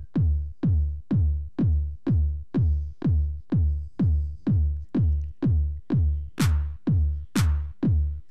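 Instrumental break of an electronic backing track: a drum-machine kick drum on every beat, about two a second, each hit falling in pitch. Near the end a sharp clap-like hit joins on every second beat.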